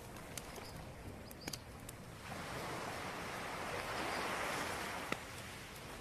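Ocean surf: a soft wash of wave noise that swells about two seconds in and fades near the end, with a few faint clicks.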